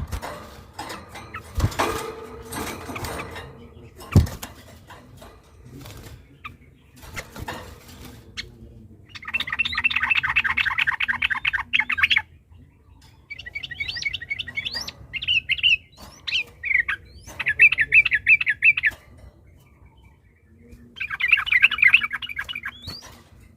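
Yellow-vented bulbul (trucukan) singing in four bursts of fast, chattering repeated notes, each one to three seconds long. This is the long rapid-fire 'ropel' song. A few knocks sound in the first seconds, before the singing starts.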